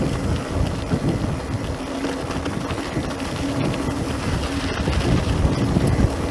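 Wind buffeting the microphone over the steady rumble of mountain-bike tyres rolling on a dirt track.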